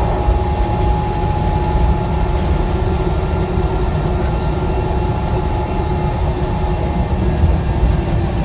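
Transit bus running with a steady low rumble and a thin, steady whine that fades out about six seconds in, one of the odd noises this bus is recorded for.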